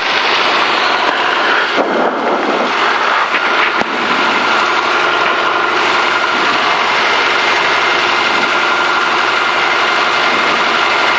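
The six-cylinder engine of a Cessna 210D Centurion running steadily as the airplane taxis onto the runway before takeoff, heard inside the cockpit.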